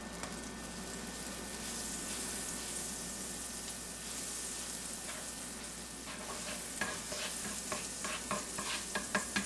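A pat of butter sizzling as it melts in a hot, newer cast iron skillet, pushed around the pan with a spatula. From about six seconds in, crackles and pops come more and more often as the butter heats up.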